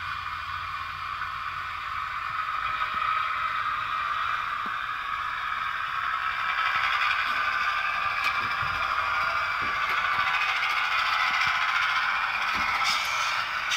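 Diesel railcar engine sound from the model's DCC sound chip, played through a small speaker in the floor of a model Class 121 DMU, thin and lacking bass; it runs steadily, with light clicking, and gets louder about halfway through.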